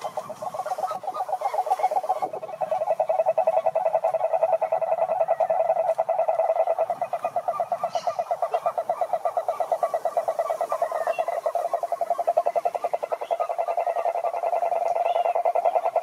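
Frogs calling in one unbroken, rapidly pulsing trill, with short higher chirps scattered over it.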